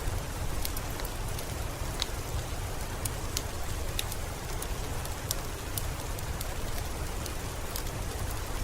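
Steady rain with a wood fire crackling. The rain is an even hiss with a low rumble beneath it, and sharp crackles come at irregular moments, about one or two a second.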